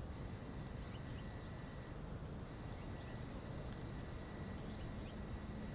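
Outdoor ambience: a steady low rumble with several faint, short, high bird chirps scattered through it.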